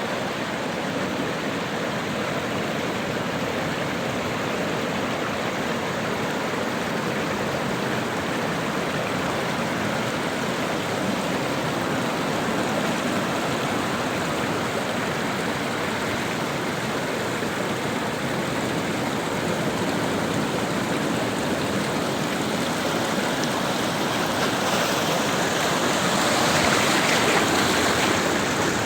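Sea waves washing on a shore: a steady rush of surf that swells louder near the end.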